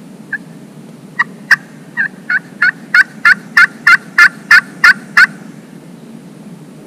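Pot-style friction turkey call worked with a wooden striker, giving hen yelps: one soft note, then a run of about thirteen yelps at about three a second, growing louder before stopping.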